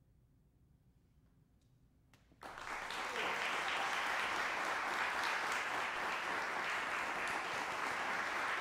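Near silence, then audience applause breaks out suddenly about two and a half seconds in and continues steadily.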